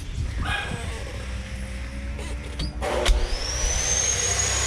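An electric power tool spins up about three seconds in, just after a knock: a rising high whine that levels off into a steady whine over a low rumble.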